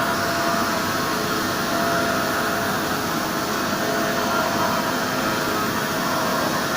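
Hartford CNC milling machine running a milling job: a steady, even machine noise with several faint steady tones in it.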